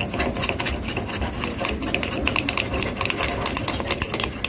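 Metal spoon beating coffee powder, sugar and a little water in a ceramic mug, clicking and scraping against the cup in a fast, even rhythm. This is the hand-whipping stage that turns the mixture fluffy.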